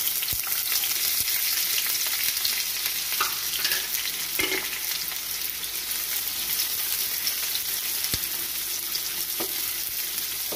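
Sliced onions sizzling steadily as they fry in hot oil, with a wooden spatula stirring them and knocking lightly against the pan a few times.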